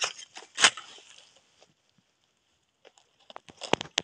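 A digging blade scraping and crunching into dry, sandy soil at a burrow entrance, with a few sharp strokes in the first second. Near the end comes a quicker run of crackling and rustling as loose dirt shifts and a hand works down into the hole.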